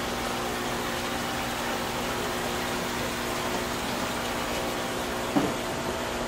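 Marine aquarium system running: pumps and filters humming steadily with water flowing through the tanks. A short falling sound cuts in briefly about five seconds in.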